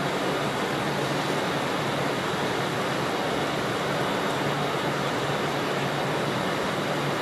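Steady hiss with a faint low hum from trains in a railway station: a steam locomotive drifting slowly in, and an electric train standing close by.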